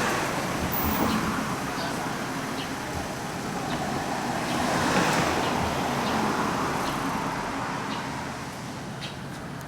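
Road traffic passing, one vehicle swelling up near the start and another about halfway through, then fading. A few faint, short, high chirps are scattered over it.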